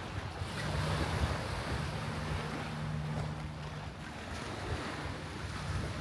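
Small waves washing onto a sandy beach, with wind buffeting the microphone. A steady low engine hum runs underneath through most of it.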